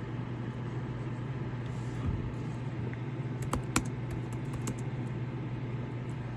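A quick run of computer keyboard clicks a little past halfway, one louder than the rest, over a steady low hum.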